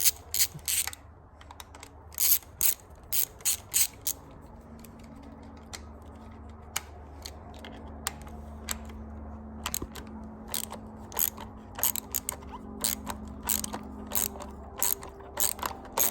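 Socket ratchet clicking in quick runs as it backs out the 10 mm valve cover bolts on a motorcycle engine, with a pause of several seconds in the middle.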